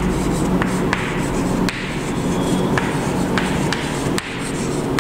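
Chalk writing on a blackboard: scratchy strokes with a few sharp taps as the chalk strikes the board, over a steady background hiss.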